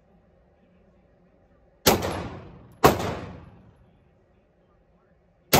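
Pistol shots on an indoor range: two shots about a second apart, then a third right at the end, each followed by a long echo off the range walls.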